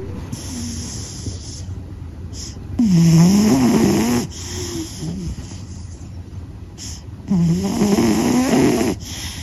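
A sleeping cat snoring. There are two loud snores about four and a half seconds apart, each with a pitch that wavers up and down, and softer breathing in between.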